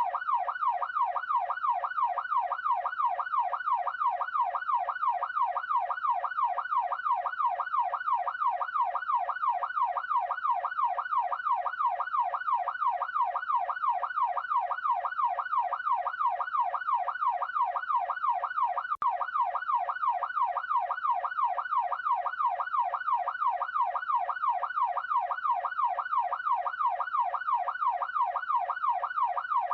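Police car siren sounding continuously in a fast rising-and-falling sweep, about two to three cycles a second. It cuts out for an instant about two-thirds of the way through.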